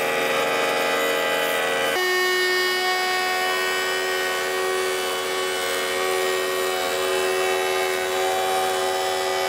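Router motor in a Ruwi router table running at speed, a steady whine whose pitch shifts about two seconds in, as a wooden board is fed past the bit. The bit is taking a very light cut to clean up a rabbet.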